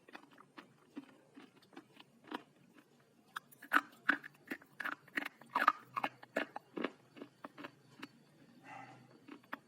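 Pieces of slate being bitten and crunched between the teeth, a run of sharp, irregular crunches that come thickest and loudest midway through.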